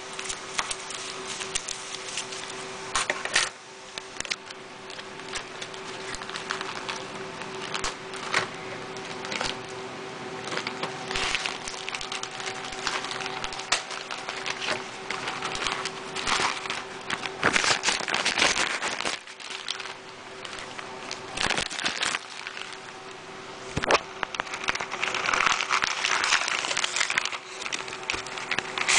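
Plastic mailer bag rustling and crinkling while it is cut open with scissors, with scattered sharp clicks and crackles from the scissors and handling; the rustling grows louder near the end.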